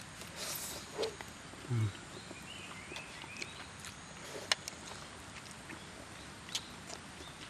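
Scattered light clicks and taps of tableware while eating, with one soft low bump about two seconds in and a sharp click about four and a half seconds in. Faint bird chirps come from the surroundings.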